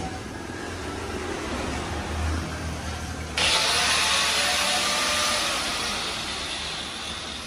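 Power tool sawing through a steel car exhaust pipe: a steady hiss starts abruptly about three seconds in and slowly fades, over a low workshop hum.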